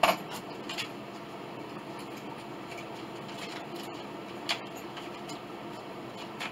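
Metal clamps clinking as they are handled and tightened on a glue-up: a sharp clink right at the start, a lighter one just under a second in, and another about four and a half seconds in, over a steady low hum.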